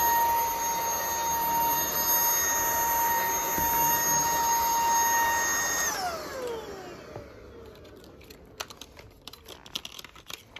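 Wyze cordless stick vacuum running with a steady high whine over the rush of air. About six seconds in it is switched off and the motor winds down in a falling whine, followed by a few light clicks and knocks.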